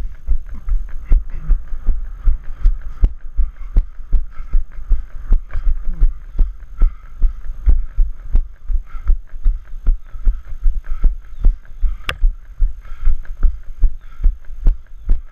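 A runner's footfalls thudding in a steady rhythm, about three strides a second, on a wooden boardwalk trail. A single sharp click about twelve seconds in.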